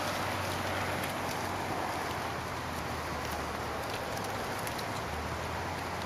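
A large herd of goats on the move, many hooves pattering on soft ground as a steady rustle with fine clicks.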